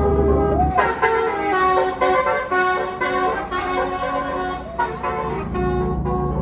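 Tour bus's basuri horn, a multi-note musical 'telolet' horn, playing a tune of held notes that step from pitch to pitch, starting about a second in after a short sliding note.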